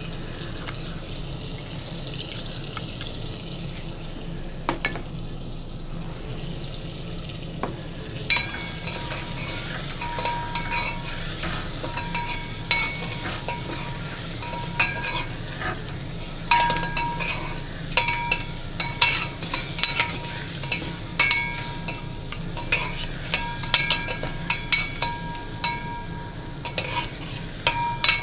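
Goat meat frying in oil and spices in a brass pot, sizzling steadily. From about eight seconds in, a metal spoon stirs it, knocking against the brass pot with repeated ringing clinks.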